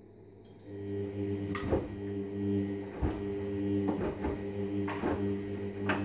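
Hoover Vision washing machine's drum motor starting up about a second in, then turning the drum with a steady hum, while the tumbling wash load knocks about once a second.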